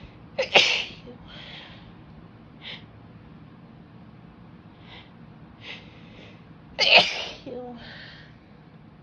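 A woman sneezing twice, about six seconds apart, the sneezes brought on by tickling her nose. Short, quieter breaths come between them and just after the second sneeze.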